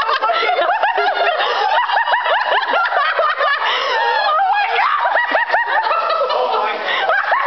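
People laughing hard and almost without pause, in high-pitched giggles and snickers.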